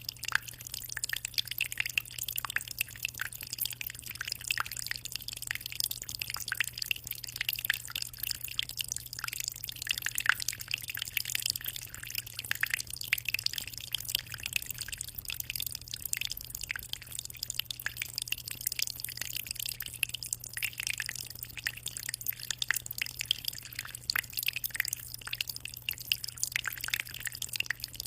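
Steady water circulation in a 60-litre aquarium: a continuous dense patter of small trickles and drips on the water surface, over a steady low hum.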